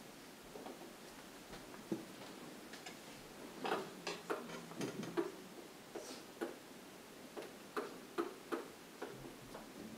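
Stylus pen tapping and clicking on the surface of an interactive whiteboard during writing: irregular light taps, busiest in the middle and again near the end.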